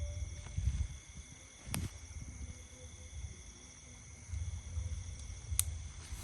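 Wind gusting over the microphone with a low rumble, over a steady chorus of high insect trills, likely crickets. Two sharp clicks sound, about two seconds in and again near the end.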